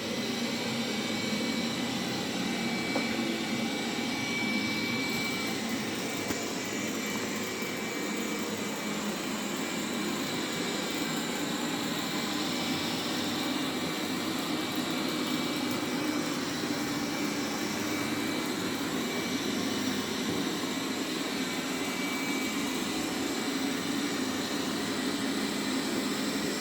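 Roborock Q7 Max robot vacuum running steadily, its suction motor whirring with a faint high whine, as it works along the edges of the room.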